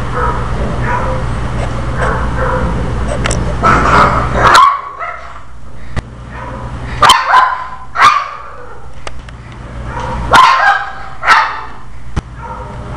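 Pekingese growling and barking in short angry fits as it snaps at its own itching tail, several outbursts in a row. A steady low hum underneath stops about a third of the way in.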